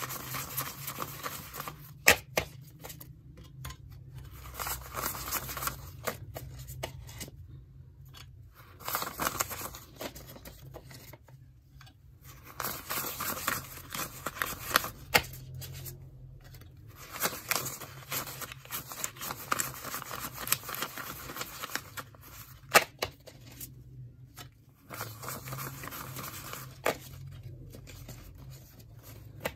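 Paper banknotes rustling and crinkling as they are handled and laid into a money tray. The rustling comes in stretches of a few seconds with short pauses between, with a few sharp clicks among them.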